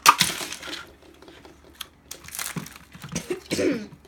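A sudden loud pop as an L.O.L. Surprise confetti pop ball is opened, followed by plastic wrapper rustling and crinkling about two and three and a half seconds in.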